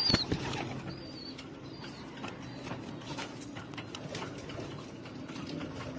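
Pigeons calling in a loft, with a few high, wavering squeaky calls in the first two seconds, scattered light knocks and rustles, and a steady low background.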